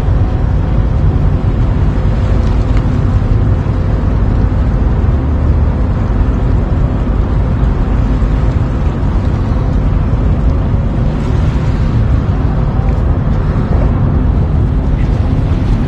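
A loud, steady low rumble with no clear breaks or separate events.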